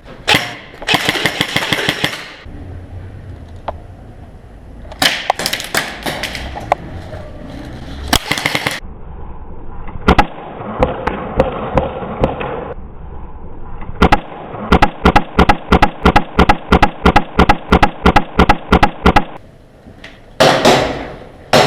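Airsoft electric rifle firing: several bursts of rapid shots, then a long string of single shots at about four a second for around five seconds, and another burst near the end.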